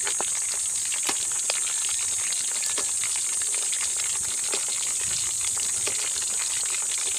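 Hot oil sizzling steadily around a whole pork leg deep-frying in a large wok, with many small crackles and pops. The skin is already browning, late in the frying.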